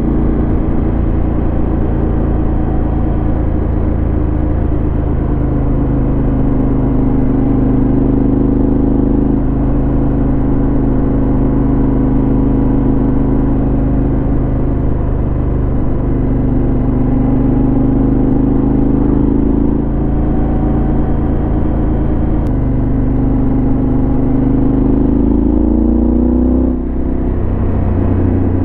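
Yamaha XT1200Z Super Ténéré's parallel-twin engine running through a LeoVince SBK aftermarket exhaust, holding a steady pitch under way. Near the end it revs up and the pitch drops suddenly, as at a gear change.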